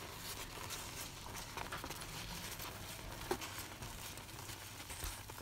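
A spoon stirring thick, cooked semolina pudding (rava kesari) in a nonstick frying pan: faint, soft scraping with three light taps spread through it.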